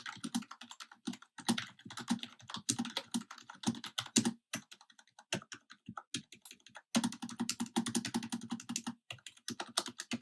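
Fast typing on a membrane computer keyboard: dense runs of key presses, each with a dull low thud under the click, broken by a couple of short pauses, with a steady unbroken run about seven seconds in.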